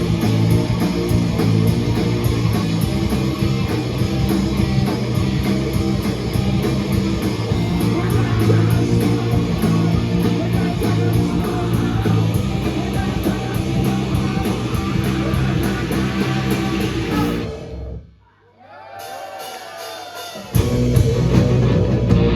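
Live heavy rock band playing loudly, with a thick, heavy low end of bass guitars and drums and distorted guitar. About eighteen seconds in the music suddenly drops out almost to nothing, a quieter wavering sound holds for a couple of seconds, then the whole band crashes back in.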